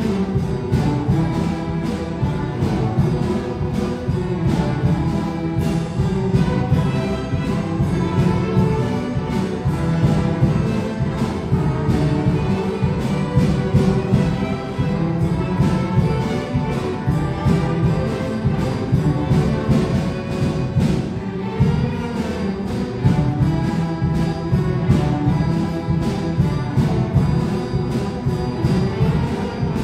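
A string orchestra of violins and cellos playing a piece live, with a strong low string part and a steady rhythm.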